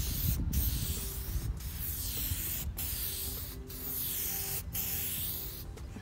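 Aerosol can of headlight coating spraying in overlapping passes. The hiss cuts out briefly about once a second as each pass ends, over a low rumble.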